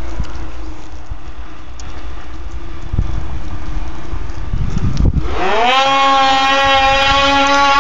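Arctic Cat M8 two-stroke snowmobile engines at the start of a drag run. A low rumble with wind noise gives way, about five seconds in, to a sharp rise in engine pitch as the throttles are opened wide. The engines then hold a high, steady note.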